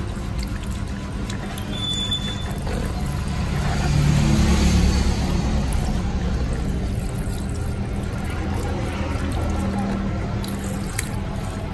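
Water spraying from a salon basin's handheld shower sprayer onto hair and splashing and running into the basin, swelling about four seconds in. Music plays underneath.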